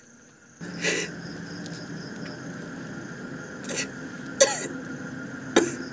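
A man coughing in four short, harsh bursts spread over a few seconds, over a steady background hum that begins about half a second in.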